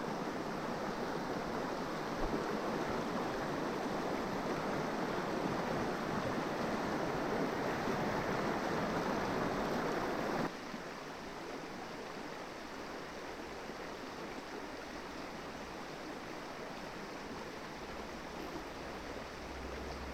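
River water flowing, a steady rush; about halfway through it drops suddenly to a softer rush.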